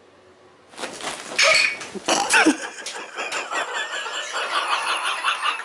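A house cat hisses and lets out a short falling yowl at a stuffed bobcat, a defensive threat at what it takes for a rival cat, followed by people laughing.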